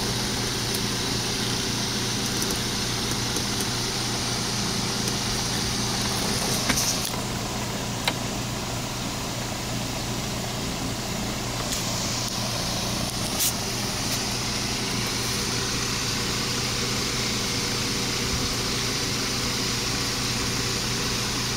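Steady hum and hiss of a vehicle idling, heard inside the cabin, with a faint sharp click about eight seconds in and another a few seconds later.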